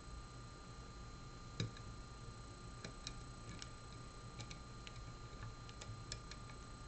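Faint, irregular small clicks of a lock pick working the pins of a Mul-T-Lock Interactive dimple lock, the loudest about one and a half seconds in.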